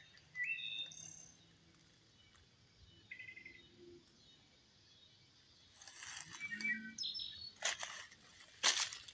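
A songbird chirping a few short rising notes, then footsteps crunching through dry leaf litter in the last few seconds, about one step a second.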